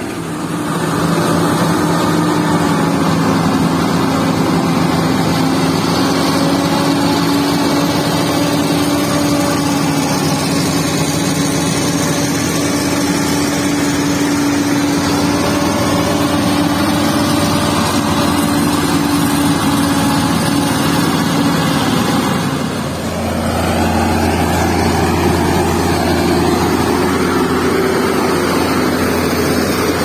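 Heavy logging truck's diesel engine running steadily at an even speed. About 23 seconds in the sound dips briefly, then runs on with a deeper note.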